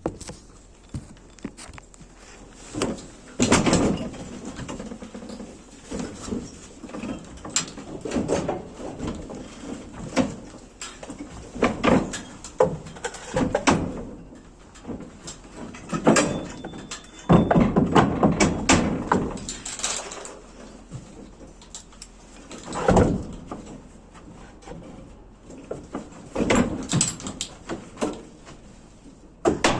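Irregular knocks, thuds and scraping of carpentry work, with several louder clusters of activity.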